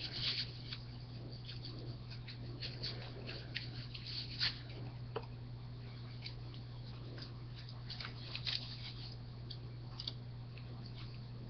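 Rustling, scraping and clicking of a black tactical vest being pulled on and adjusted, with scattered short clicks, a few louder ones near the start and around the middle. A steady low electrical hum runs underneath.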